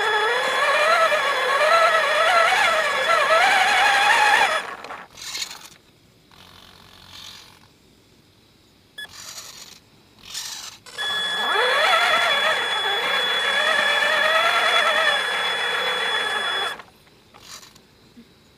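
Tonka Summit toy truck's drive motor whining as it moves, its pitch rising and falling unevenly with speed, in two runs of about four and six seconds with a near-quiet pause between them and after.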